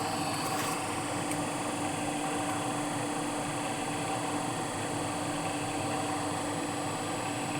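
Electric valve actuator's newly replaced motor running steadily, driving the valve toward closed: an even motor hum with a faint high whine.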